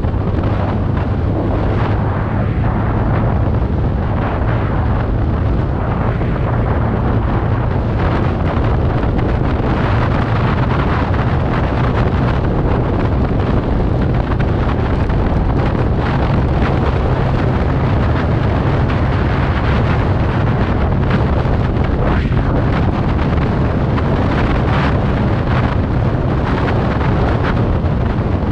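Wind buffeting the microphone over the steady drone of a TVS Ntorq Race XP scooter's single-cylinder engine, cruising at highway speed.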